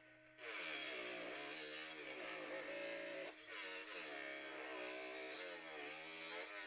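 Electric saw motor running under load, its pitch sagging and recovering over and over as the blade cuts through rock, over a steady hum.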